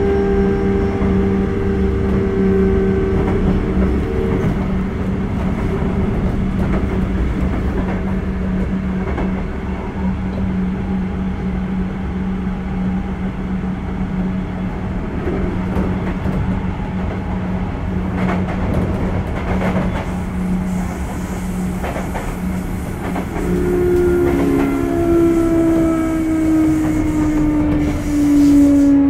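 Sotetsu 8000 series electric train running at speed, a steady motor hum over wheel rumble and scattered rail-joint clicks. About 24 s in, a motor whine sets in and slides down in pitch as the train slows.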